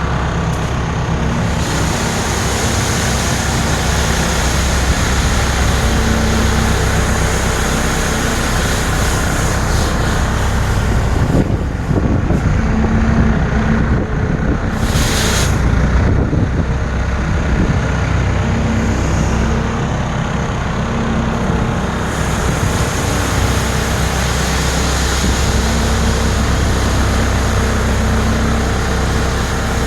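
Heavy vehicle engine running steadily under load, with a short burst of hissing about halfway through.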